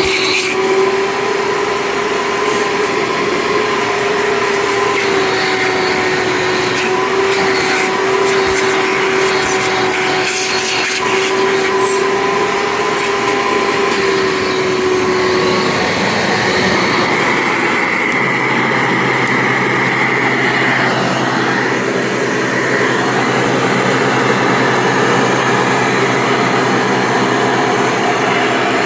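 Hoover Convertible upright vacuum cleaner running steadily, its motor fitted with a 20-blade fan. A little over halfway through, the pitch of its hum changes and a higher tone comes in.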